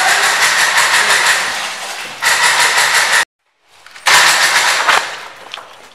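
Airsoft electric rifle firing full-auto bursts, a fast, even mechanical buzz. Several bursts follow one another, broken by a sudden moment of total silence a little past three seconds.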